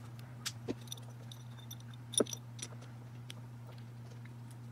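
Light metallic clicks and clinks as the aluminium oil pump's rotors and housing are handled and fitted together, the sharpest click about two seconds in, over a steady low hum.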